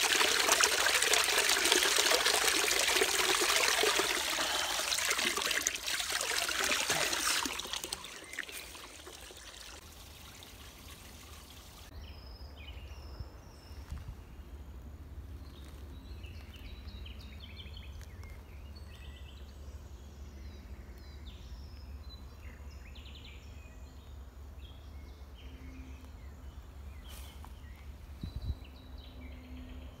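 Spring water pouring from a pipe spout into a stone trough, a steady splashing that fades out about eight seconds in. From about twelve seconds in, birds chirp in short scattered calls over a low steady rumble.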